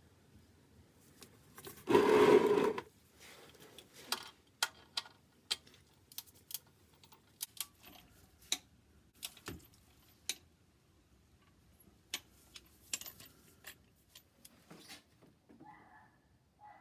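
Torque wrench tightening a car's sump plug: a loud rasping burst of just under a second about two seconds in, then scattered sharp clicks and taps of the metal tool.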